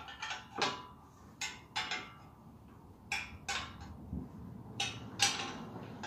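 Irregular metallic clinks and short scrapes of a hand wrench working the bolt of the clamp on an MTZ tractor's exhaust pipe, about eight of them.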